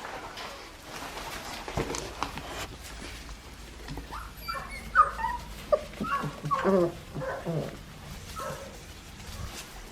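Four-week-old Australian Shepherd puppies whimpering and yipping: a run of short, high calls starting about four seconds in and fading out near the end.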